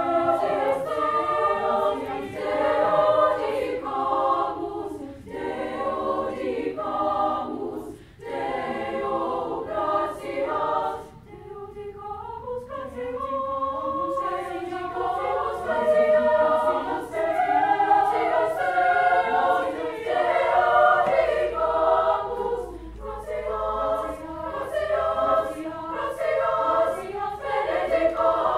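Women's choir singing together, with short breaks between phrases about 8 and 11 seconds in.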